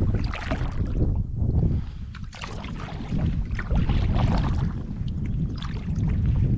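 Water swishing and sloshing around a canoe in repeated surges, over a steady low wind rumble on the microphone.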